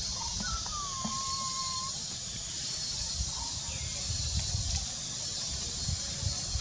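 A young macaque's thin, whistle-like coo call: one long note about half a second in that slides down and then holds for about a second and a half, over a steady high hiss.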